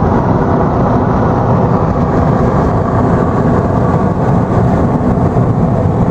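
Steady road and engine rumble heard from inside a moving car.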